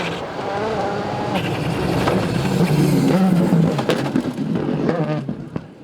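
A rally car's engine at full throttle on a gravel stage, growing louder as it approaches, passing at its loudest and fading away near the end. A string of sharp cracks runs through the loudest part.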